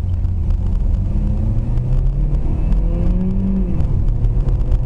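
A moving car's engine and road rumble, steady and low, with the engine note rising briefly about three seconds in and then dropping back.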